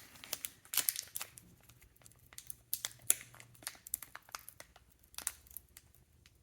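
Trading cards and a foil pack wrapper being handled: irregular crinkling, rustling and short sharp clicks of paper and cardboard.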